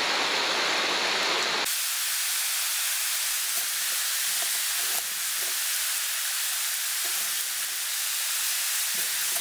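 Shallow river rapids rushing over rocks, a steady hiss of water, with faint sloshing as a wader-clad angler walks through the current. About two seconds in, the rushing abruptly loses its low rumble and thins out.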